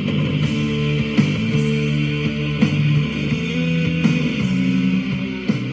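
Guitar-led music with plucked and strummed notes, played through the small speaker of a Raddy RD939 portable radio.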